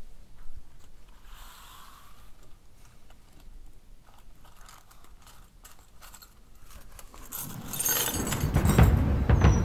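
Hands untying a small string-tied cloth pouch on a wooden table, with soft rustling and light metallic clinks. About eight seconds in, a loud low rumble full of rapid clicks swells up.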